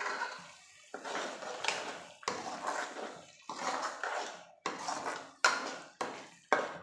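Long steel spoon scraping and clanking against an aluminium kadai while stirring a thick masala paste, in a quick run of strokes about two a second, starting about a second in.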